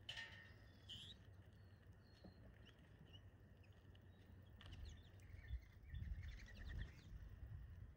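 Faint, scattered chirps of small songbirds at a feeder: a couple of short calls about a second in and a brief flurry of notes around six to seven seconds, over a low background rumble.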